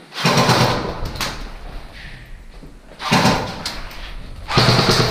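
Three bursts of scraping, rustling noise. The first lasts about a second and the next two are shorter, coming about three and four and a half seconds in.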